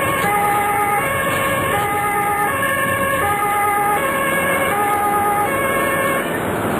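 German two-tone siren (Martinshorn) on an ambulance on an emergency run, heard from inside the vehicle over engine and road noise. It alternates between a high and a low tone, each held about three quarters of a second, and stops near the end.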